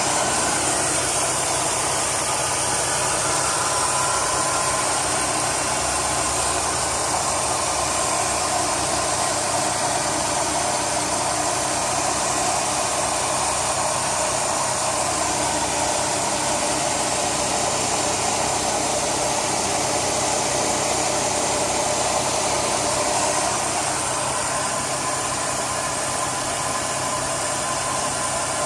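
Chrysler 3.5L V6 engine idling steadily, with a constant rushing noise over the engine hum.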